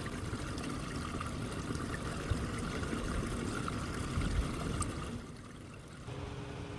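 Water trickling and running through a culvert whose entrance is clogged with leaves. A low steady hum comes in near the end.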